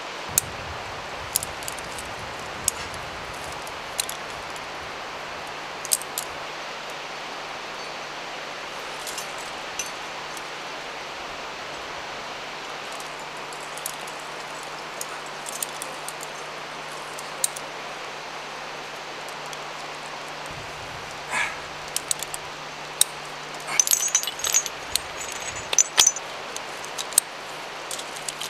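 Climbing hardware (carabiners and cams) clinking as a lead climber places protection and clips the rope: scattered single clicks, then a busy run of metallic jangling near the end, over a steady background hiss.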